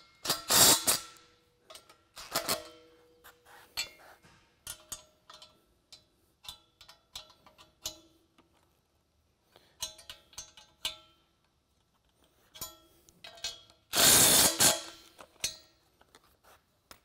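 DeWalt cordless impact driver hammering flange nuts down onto U-bolts in short bursts: two brief bursts at the start and a longer one about fourteen seconds in. Between them come light metallic clinks and knocks of the socket, nuts and steel bracket being handled.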